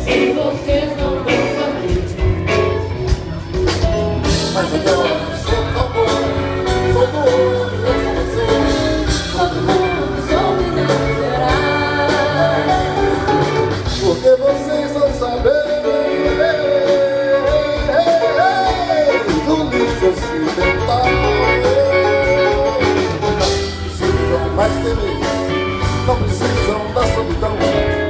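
Live band music from a rock/MPB stage performance, heard through the PA from within the audience, with a sung melody over bass, guitar and drums continuing without a break.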